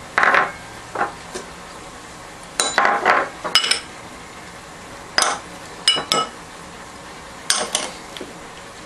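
Small glass bowls clinking and tapping against a glass mixing bowl as spice powders are tipped and tapped out into yogurt. A scattered series of sharp clinks, several ringing briefly.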